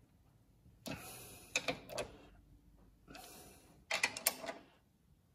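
Hand ratchet wrench on an extension, ratcheting in two spells of clicks as it winds in the tow bar's mounting bolts, drawing the bar up tight against the chassis.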